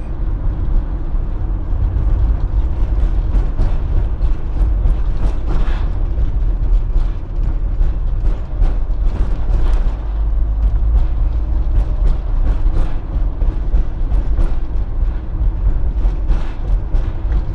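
Fiat Fiorino delivery van driving slowly, heard from inside the cabin: a steady low engine and road rumble with frequent small rattles and creaks from the body over a cracked street.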